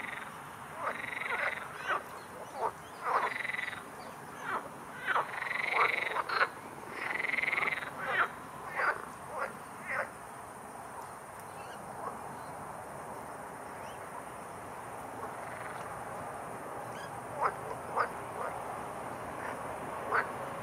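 Frogs croaking in the background of a pond: a busy run of repeated croaks, some drawn out to about a second, through the first half, then quieter with a few short single croaks near the end.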